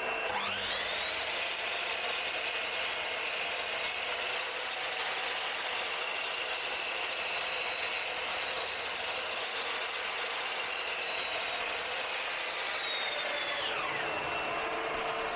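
Ryobi EMS254 corded mitre saw's motor spinning up with a rising whine about half a second in, running steadily, then winding down near the end. A shop vac runs underneath throughout.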